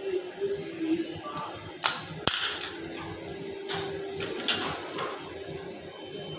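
Metal cookware being handled at the stove: a scatter of sharp clicks and knocks, loudest about two seconds in and again a little past four seconds, over a low steady hum.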